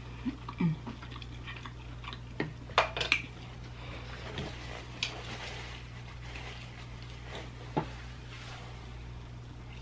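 Eating sounds at a table: scattered small clicks, taps and mouth noises, with a sharp cluster of clicks about three seconds in and another near the end. A steady low hum runs underneath.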